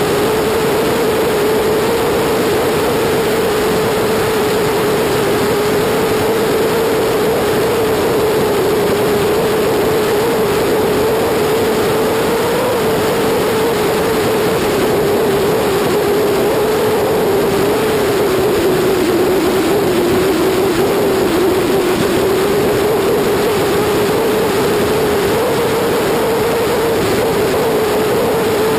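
BMW F800GS motorcycle's 798 cc parallel-twin engine at a steady cruise, a constant hum that drifts slightly in pitch, under heavy wind and road noise.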